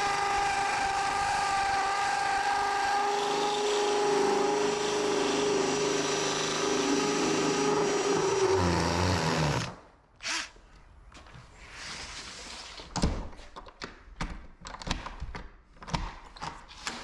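Cordless drill running steadily for nearly ten seconds, its pitch sagging slightly just before it stops. Then a scatter of light knocks and clicks.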